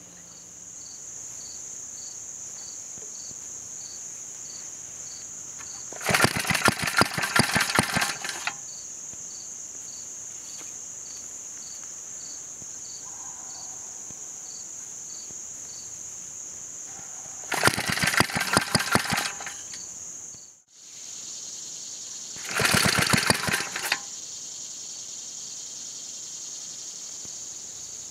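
1954 Briggs and Stratton Model 6S 2 HP flathead engine rope-started three times: each pull brings a rapid run of pops lasting one to two seconds that dies out, without the engine running on. A later caption traces the failure to a fuel level too low for the engine's short fuel pickup tube. Crickets chirp steadily behind.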